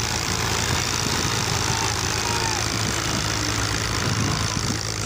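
Farm tractor's diesel engine running steadily, its open engine bay giving a loud, even clatter.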